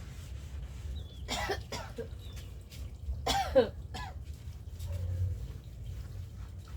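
A person coughing, two short coughs about two seconds apart, the second louder.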